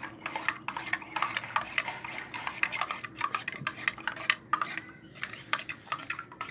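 A spoon stirring in a glass, clinking quickly and irregularly against the sides while dissolving sugar into warm water with crushed garlic.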